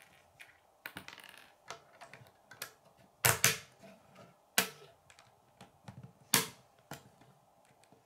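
Plastic K'nex connectors and rods clicking and snapping together as they are pressed into place, with a few louder snaps, the first about three seconds in, among scattered small clicks.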